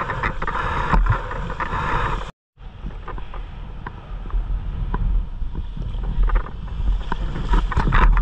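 Sea water washing and splashing, with wind buffeting the microphone. The sound cuts to silence briefly a little over two seconds in.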